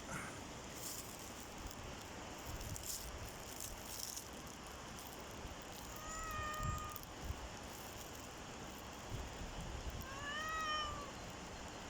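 A cat meowing twice over a steady background hiss: a flat, even call about six seconds in, and a rising-then-falling meow near the end.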